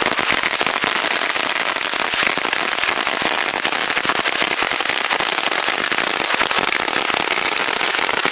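A string of firecrackers (a firecracker mat) going off on the ground: a fast, unbroken rattle of small sharp bangs, described as shrill and quick.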